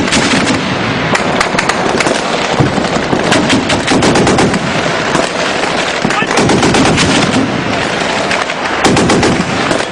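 Sustained automatic gunfire: machine guns and rifles firing in dense, overlapping bursts with no pause, a battle exchange of fire.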